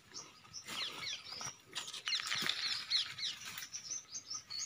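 Small birds chirping busily in the surrounding bushes: many short, quick, falling chirps overlapping one another, with a few soft knocks or rustles in between.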